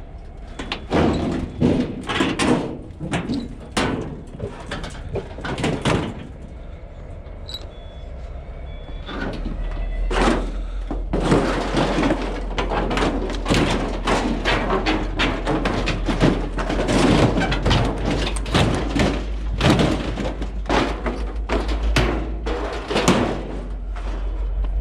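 Repeated metal knocks, clanks and rattling as a scrap machine is taken apart to remove its motor: scattered blows at first, turning into dense, busy clattering about nine seconds in, over a low steady rumble.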